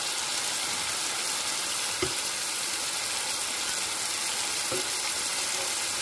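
Onion and spice masala sizzling steadily in hot oil in a pan, with two light knocks, about two seconds in and again near five seconds, as pieces of fried pangasius fish are laid in.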